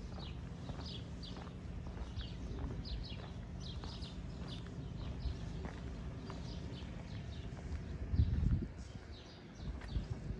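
Small birds chirping in many short, high, irregular notes over a steady low outdoor rumble, with a brief louder low rumble about eight seconds in.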